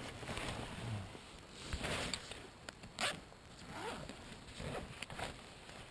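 Zipper on a fabric backpack being worked, with several short rasps and fabric rustling as the bag is handled; the sharpest rasp comes about three seconds in.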